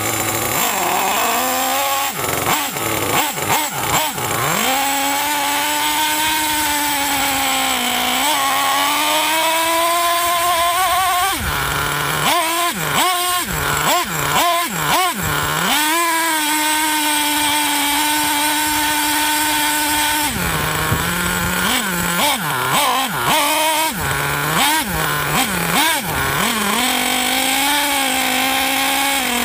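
Small nitro-fuelled RC engine running hard, close to the microphone. It holds a high steady pitch for long stretches and is blipped up and down rapidly in two stretches, about twelve seconds in and again past twenty seconds.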